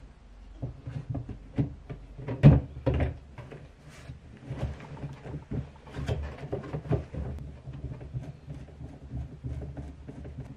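Handling sounds of a plastic cat-flap frame being fitted into a cardboard box: irregular knocks, taps and scrapes of plastic against cardboard, with the loudest knock about two and a half seconds in.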